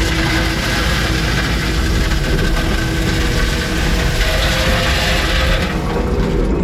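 A tracked earthmoving machine at work: its diesel engine runs steadily, mixed with mechanical clatter from the tracks and running gear.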